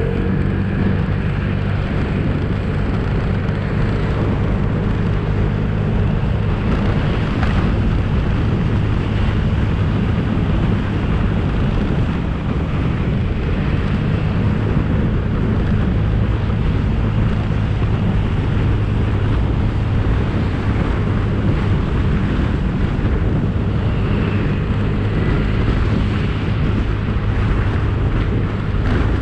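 Scooter engine running steadily through the ride, with wind rushing over the handlebar-mounted action camera's microphone.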